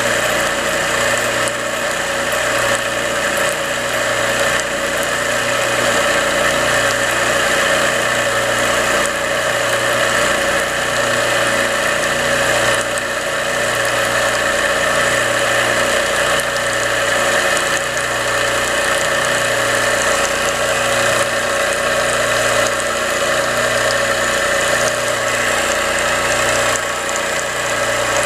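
Terada electric power-sprayer pump running steadily on its test run, its rust-seized moving parts freshly cleaned, oiled and greased: a steady machine hum with a regular low pulsing.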